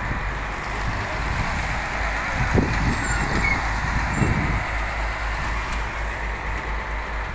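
Diesel engine of a small Nile tug boat running steadily, with wind and water noise over it.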